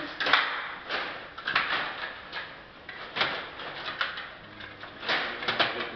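Stiga table hockey game in play: irregular clacks and knocks of the control rods and plastic players against the puck and rink.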